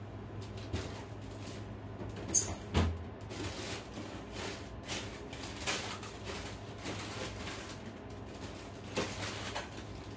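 Rummaging through a freezer: plastic bags of frozen food rustling, crinkling and knocking in irregular bursts, with one loud crinkling clatter about two and a half seconds in, over a low steady hum.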